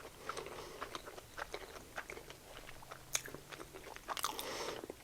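Quiet close-up chewing and biting of a potato-crusted Korean corn dog: soft crunches and small wet mouth clicks, scattered irregularly, with a sharper crunch about three seconds in and a short flurry near the end.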